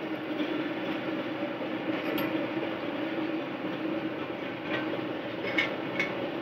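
Plastic recycling machinery running with a steady drone, with a few sharp clicks about two seconds in and twice near the end.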